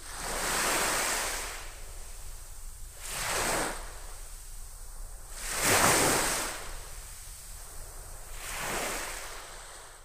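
Small waves breaking and washing up a sandy beach, swelling four times, with the loudest break about six seconds in.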